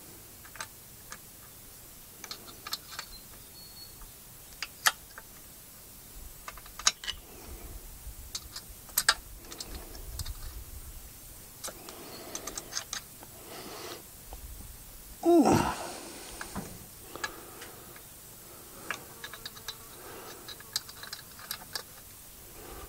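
Irregular light metallic clicks, taps and clinks of hand tools and small parts being handled while reassembling a two-stroke generator's exhaust. About fifteen seconds in there is one louder, brief sound that drops in pitch.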